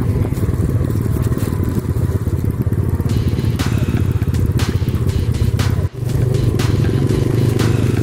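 Yamaha Vega underbone motorcycle's single-cylinder four-stroke engine running steadily at riding speed, heard from the rider's seat. From about three seconds in, the bike clatters and knocks as it rides over a rough, potholed road surface.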